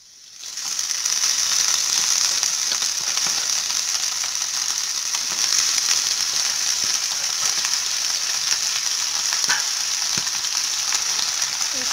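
Washed Malabar spinach (pui shak) leaves dropped into hot mustard oil with browned onions, setting off a loud, steady sizzle that starts suddenly about half a second in; the water held on the leaves spits in the hot oil.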